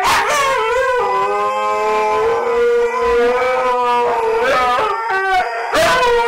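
Two Siberian huskies howling together on the cue 'sing': long drawn-out howls that slide in pitch, the two voices overlapping. There is a brief break near the end before the howling picks up again.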